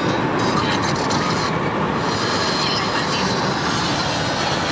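Steady road noise inside a moving car's cabin at motorway speed: tyre and wind noise as one continuous hum.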